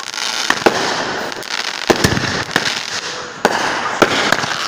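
Fireworks going off: a rapid, irregular string of sharp bangs and pops, about a dozen in under five seconds, over a continuous crackle.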